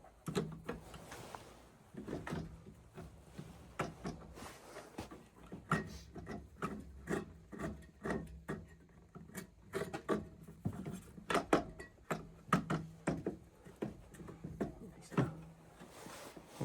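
Repeated short clicks and knocks of metal tools and parts being handled while the oil burner motor's two mounting bolts are fitted, coming thickest in the middle, over a faint steady low hum.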